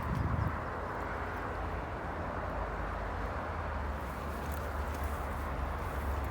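Wind on the microphone, a steady low rumble under a steady outdoor hiss.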